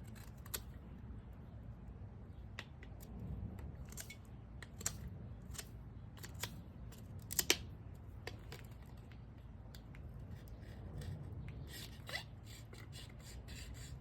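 Pocket-knife blade carving a small, very hard stick: irregular sharp clicks and short scrapes as wood is cut and shaved, the loudest a little past halfway.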